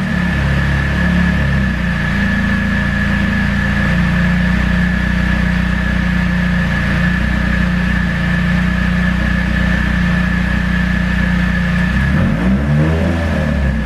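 Nissan SR20DET turbocharged four-cylinder idling steadily on freshly changed spark plugs, warming up so its air-fuel ratio can be read. Near the end it revs briefly, the pitch rising and falling back to idle.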